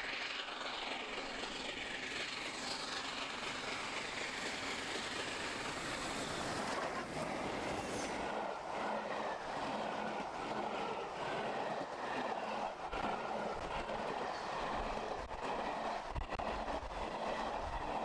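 The LNER A3 Pacific steam locomotive Flying Scotsman running past at speed close by. About seven seconds in, its long train of carriages begins rushing past, with a rapid clatter of wheels over the rail joints.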